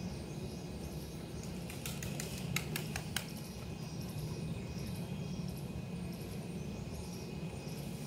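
Steady low outdoor rumble, with a quick run of sharp little clicks about two to three seconds in; no peacock calls are heard.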